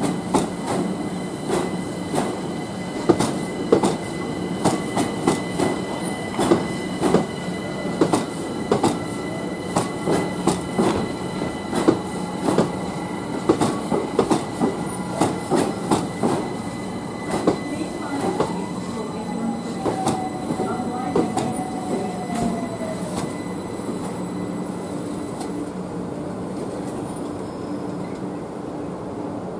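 London Overground Class 378 electric multiple unit rolling slowly over pointwork: its wheels clack over rail joints and crossings in quick uneven clusters, with a steady electric hum underneath. About two-thirds of the way through, a brief wheel squeal slides down in pitch, and the clacking thins out near the end as the last carriages pass.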